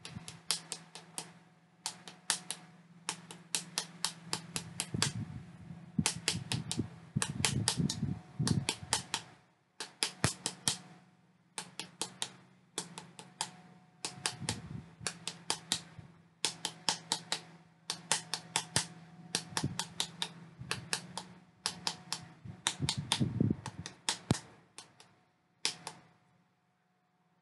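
Wooden paddle tapping the outside of a clay pinch pot held in the hand, in runs of quick sharp taps, about four or five a second, with short pauses between runs.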